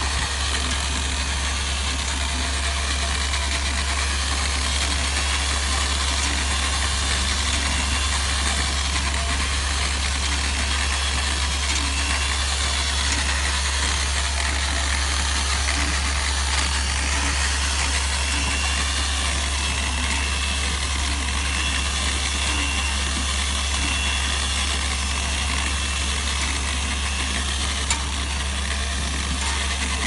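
Corded electric drill fitted with a paddle mixer running steadily, churning wet lightweight aerated concrete mix in a plastic bucket. The motor gives a constant whine with a slightly wavering high tone.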